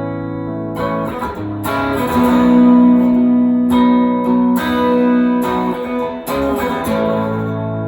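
Gibson Les Paul Deluxe electric guitar with P90 pickups, plugged in and played: a held chord rings, then from about a second in a run of picked chords and notes, each left to ring.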